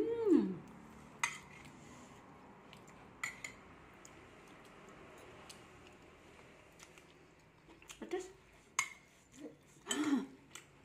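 A spoon clinking against a plate a few scattered times while eating. A short vocal exclamation that rises and falls in pitch comes at the start, and brief murmured vocal sounds come near the end.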